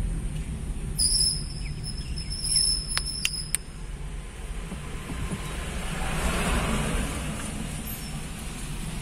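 Road and engine noise inside a moving car's cabin: a steady low rumble, with three sharp clicks about three seconds in and a hiss that swells and fades around six to seven seconds in.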